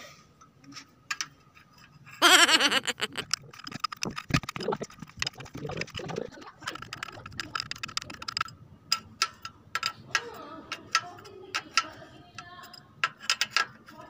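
Irregular metallic clicks and taps of hand tools working on a diesel engine's injector lines, with a short loud voice about two seconds in.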